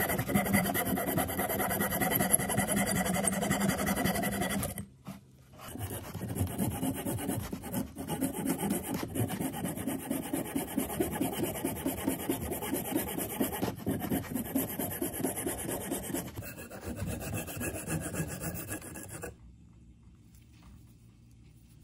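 Abrasive hand rubbing, like sanding or filing, in quick back-and-forth strokes. It comes in three spells with short breaks about 5 and 16 seconds in, and stops about 19 seconds in.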